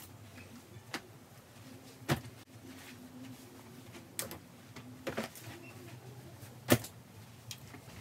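Plastic clothes hangers clicking and knocking together as clothes are taken off them: a sharp click about every second, the loudest a little before the end.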